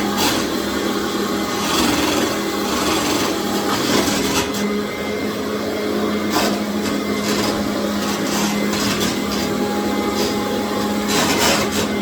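Commercial vacuum cleaner running steadily over a tile floor, a loud motor hum with irregular scraping and rubbing as the floor tool moves across the tile.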